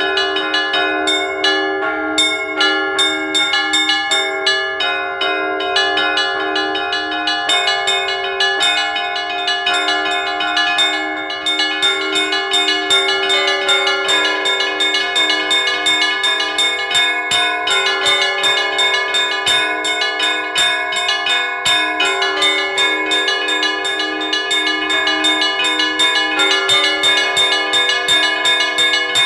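Russian church bells ringing in a continuous peal (kolokolny zvon): small bells struck in a fast, unbroken pattern over the lingering tones of larger bells, with a brief dip a little before halfway.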